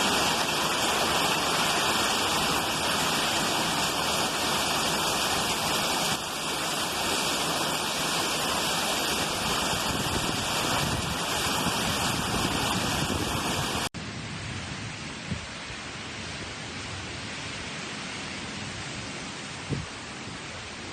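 Heavy rain pouring in a thunderstorm, a steady hiss. About two-thirds of the way through it cuts to a softer stretch of rain.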